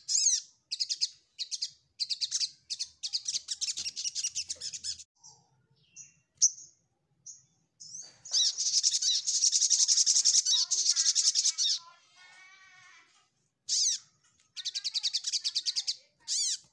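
Olive-backed sunbird singing: a string of short, high, rapid trills, then one long unbroken trill from about 8 to 12 seconds in, followed by a softer, lower rattle, and more short trills near the end.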